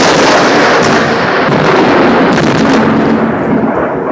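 Loud thunder from a lightning strike close by, rolling on in a heavy continuous rumble with a few sharp crackles, easing slightly near the end. The strike hit a power line right there.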